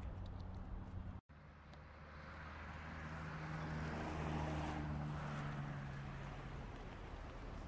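Outdoor background hum broken by a brief total dropout about a second in; then a vehicle drives past, its engine hum and tyre noise swelling to a peak in the middle and easing off slightly.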